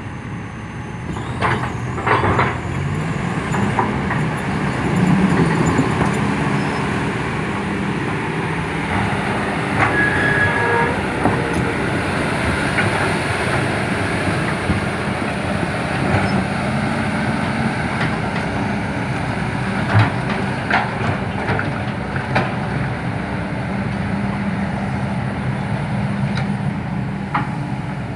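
Heavy diesel machinery running steadily, its engine note shifting a little, with occasional sharp metallic clanks.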